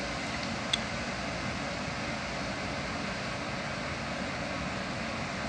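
Steady background room noise, an even hiss with low hum, with one faint click about three quarters of a second in.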